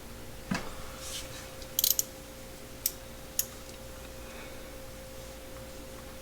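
A few short, sharp clicks and taps from metal wrenches being handled, including a quick cluster of three near two seconds in, over a faint steady hum.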